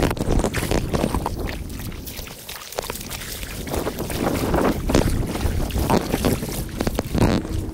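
Footsteps wading and splashing through shallow water over mud, in an uneven series of sloshes, with wind buffeting the microphone.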